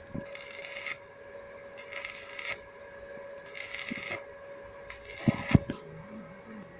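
Welding arc crackling in four short bursts, each well under a second and about a second and a half apart, like tack welds on steel. Sharp metal knocks come at the start and twice more about five seconds in, over a steady hum.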